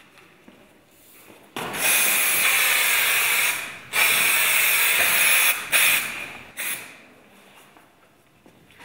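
Hissing spray noise: two long sprays of about two seconds each, then two short bursts that fade away.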